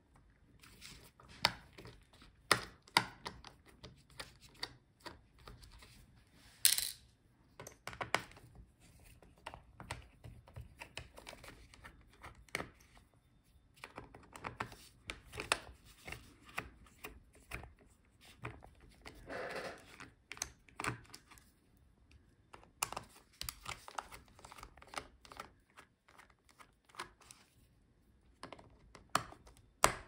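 Precision screwdriver working the small M2x5 screws that hold a laptop battery: irregular light clicks and taps of the bit and tool on the screws and case, with one longer scrape about two-thirds of the way through.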